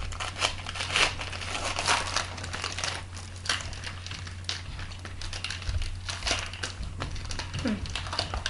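Trading card pack wrappers crinkling and rustling in irregular crackles as packs are handled and opened, over a steady low hum.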